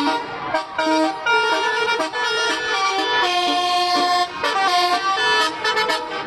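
Indonesian 'telolet' bus horn, a multi-tone musical air horn, playing a melody of quickly changing notes.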